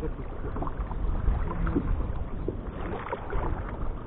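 Water lapping and splashing against a sit-on-top kayak's hull as it moves along the river, over a steady low rumble.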